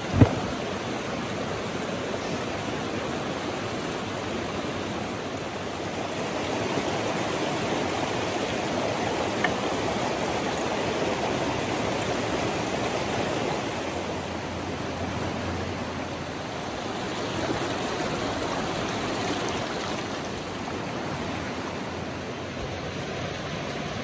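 Shallow rocky stream rushing steadily over stones. A single sharp knock comes right at the start, and a faint tap follows about ten seconds in.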